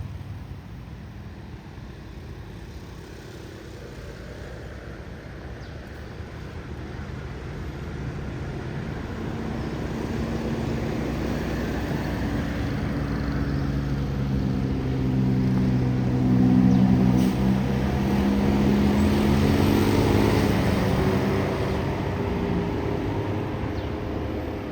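A large bus drawing near and going by: engine and road noise grow steadily louder, with a low hum that shifts in pitch, peaking about two-thirds of the way through before easing slightly.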